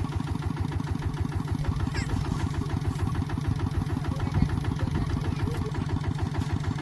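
Kubota rice harvester's diesel engine running steadily with a fast, even throb.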